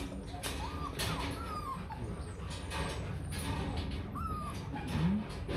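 Rottweiler puppy whimpering in a few short, high whines, with some brief knocks.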